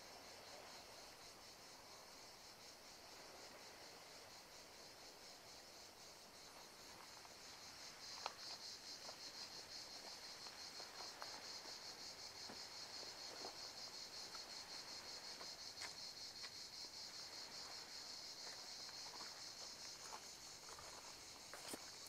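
Faint, steady high-pitched insect trilling, a rapid pulsing buzz that grows louder about eight seconds in. A few faint clicks or snaps sound over it.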